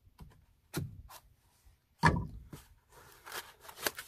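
Handling noise from a pocketknife and a small cardboard box: a few sharp clicks and knocks, the loudest about halfway through, then light cardboard rustling and tapping near the end.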